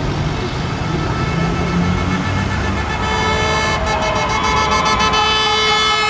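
Street traffic rumbling past, then from about halfway through a car horn sounds in one long, steady honk, given in answer to demonstrators' "Honk for rights" signs.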